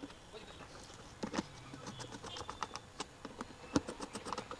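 A screw being driven in and tightened, a run of small irregular clicks and ticks.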